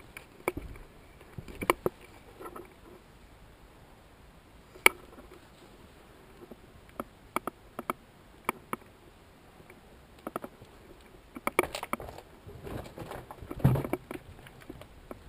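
Footsteps and gear rattling while walking over rubble-strewn concrete: irregular short clicks and scuffs, coming thicker towards the end.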